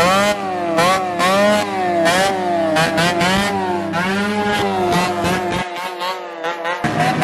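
Two-stroke motorcycles with racing exhausts revving hard in repeated throttle blips, their pitch swooping up and down again and again.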